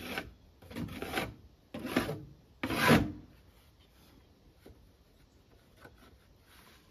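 Hand scraping strokes across wood, each about half a second long and about a second apart. The last is the loudest and ends about three seconds in, followed by a few faint knocks.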